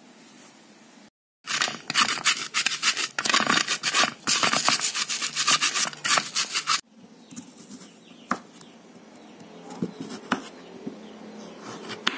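Stone pestle grinding garlic and candlenuts in a stone mortar (Indonesian cobek and ulekan): loud, rapid scraping and crushing strokes for about five seconds, cutting off abruptly. After that, a few faint knocks of a knife cutting carrot on a wooden board.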